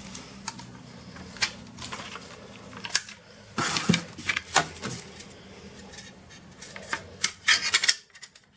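Hands working inside an open laptop, lifting out its 2.5-inch hard drive: irregular clicks, taps and short scrapes of plastic and metal parts.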